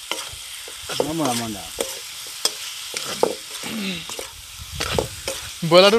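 Pork frying and sizzling in a wok-style pan while a metal ladle stirs it, scraping and clinking irregularly against the pan.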